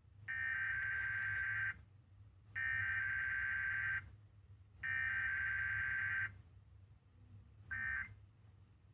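Emergency Alert System SAME header: three screechy bursts of digital data tones, each about a second and a half long with about a second between them, then two short bursts near the end.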